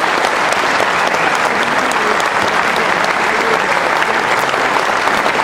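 Large audience applauding steadily, a dense, even clapping that fills the hall.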